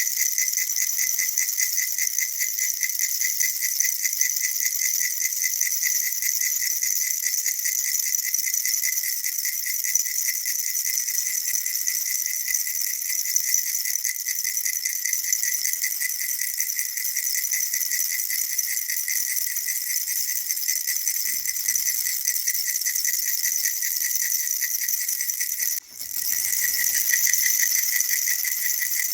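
Baby rattle shaken quickly and without pause, a steady bright rattling. It breaks off for an instant near the end, then carries on.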